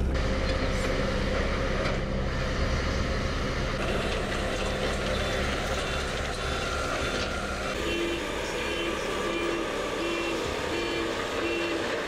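Heavy construction machinery engine running, and from about eight seconds in a reversing alarm beeping at an even pace, about one and a half beeps a second.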